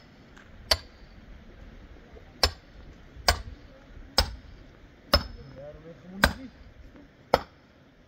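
A series of seven sharp strikes about a second apart, each a hard knock, several followed by a brief high ring.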